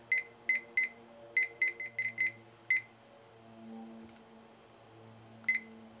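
Presto digital kitchen timer beeping at each button press: nine short, high beeps in quick, uneven succession over the first three seconds as the time is set, then a single beep about five and a half seconds in as the countdown is started.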